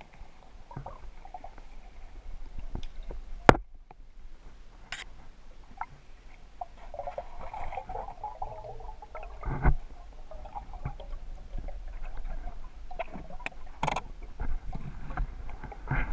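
Muffled underwater sound picked up by an action camera in its waterproof housing on a hand-held pole: a low steady rumble with scattered sharp clicks and knocks, the loudest a click about three and a half seconds in and a thump near ten seconds.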